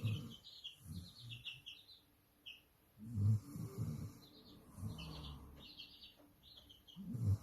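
A sleeping dog snoring, a low rough snore every two seconds or so, with birds chirping in quick runs in the background.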